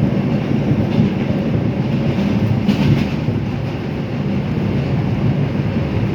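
R142 subway car running at speed between stations: a steady low rumble of wheels on rails, with a brief rise in higher-pitched noise about three seconds in.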